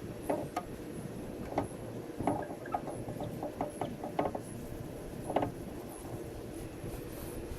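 Irregular metallic clicks and clinks of parts and tools being handled while working in a car door: a few single clicks, a quick run of them in the middle, and a louder click near the end.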